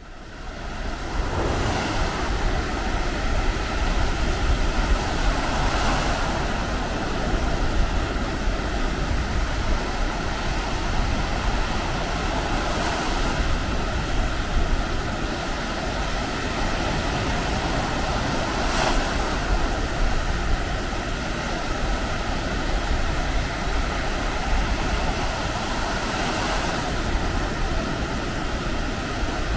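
Baltic Sea surf washing onto a sandy beach, a steady rush with a wave swelling up every several seconds, and wind rumbling on the microphone. The sound fades in over the first second.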